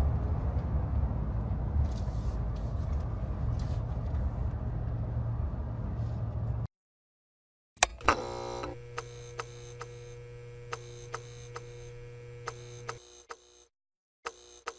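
Steady road and engine rumble inside a moving car's cabin, which cuts off abruptly. About a second later a switch clicks and an electric hum with steady tones starts, ticked by regular clicks about every 0.7 s, and dies away near the end.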